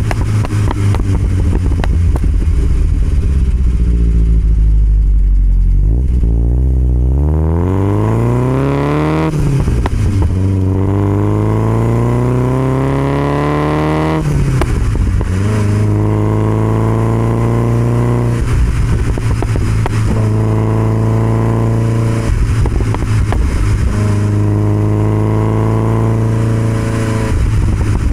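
1969 Alfa Romeo Spider 1750's twin-cam four-cylinder engine through an Alfaholics exhaust. It pulls hard from low revs, the pitch climbing, with an upshift about nine seconds in and another about halfway through. It then runs at a steady cruise, with the throttle eased off briefly a few times.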